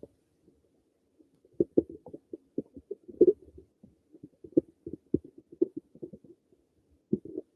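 Human stomach gurgling: a run of quick, irregular bubbling gurgles and pops. It starts about a second and a half in, dies away after about six seconds, and picks up again at the very end.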